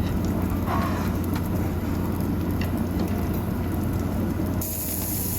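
Black pork sizzling on a tabletop grill over a steady low hum, with a few faint clicks. The hiss gets louder about four and a half seconds in.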